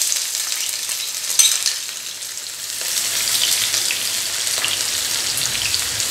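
Chopped onions and green chilli sizzling and frying in hot oil in a nonstick frying pan, stirred with a spoon, with a short tap about a second and a half in.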